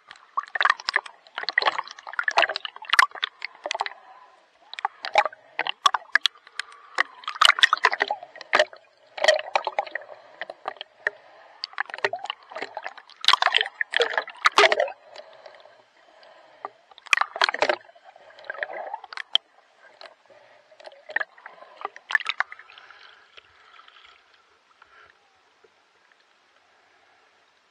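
Water splashing and sloshing close to the microphone in irregular bursts from swimming strokes, dying away a few seconds before the end.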